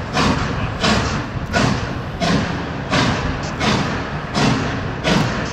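Norfolk & Western 611, a J-class 4-8-4 steam locomotive, chuffing slowly and evenly as it backs its passenger train: about eight exhaust beats, each a little under a second apart.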